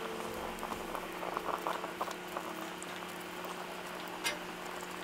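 Grilled cheese sandwich frying in a cast iron skillet over a small wood fire: a steady sizzle, with a cluster of light clicks and crackles about one to two seconds in and another near the end as twigs are fed into the firebox.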